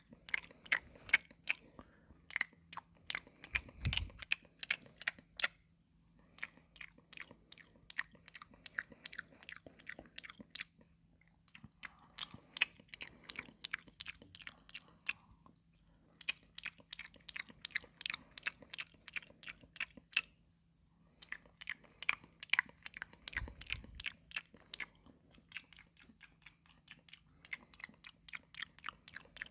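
Close-miked chewing of crunchy raw cucumber: rapid runs of wet crunches with brief pauses between mouthfuls. Two low thuds break in, one about four seconds in and one near the end.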